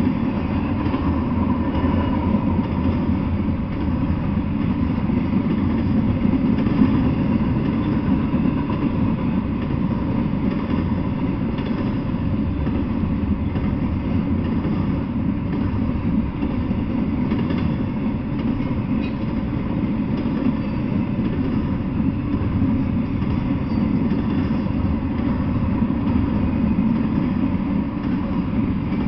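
Double-stack intermodal freight train of container-laden well cars rolling past at steady speed: a continuous low rumble of steel wheels on the rails.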